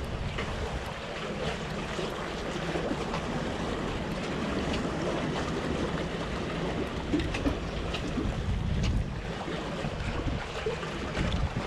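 Sea water washing around concrete wave-breaking blocks, with wind buffeting the microphone as a low rumble and a few faint clicks.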